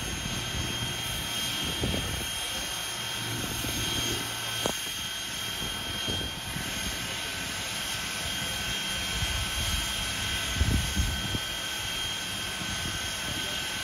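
Canadian Pacific 89, a 2-6-0 steam locomotive, standing in steam at idle: a steady hiss and roar with thin steady whining tones running through it. A low hum stops with a short click about a third of the way in, and a few low thumps come near the end.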